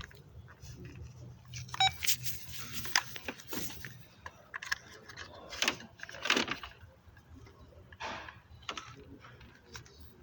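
Scattered clicks, rattles and scrapes of hands and tools working at a car's fuel injector wiring connector, over a steady low hum.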